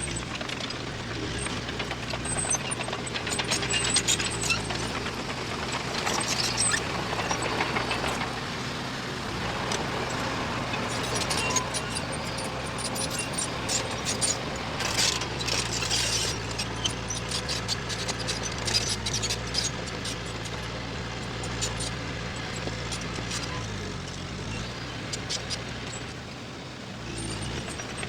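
Diesel engine of heavy earth-moving machinery running steadily, with a constant low hum and frequent metallic clanking and clicking throughout, heaviest in the middle.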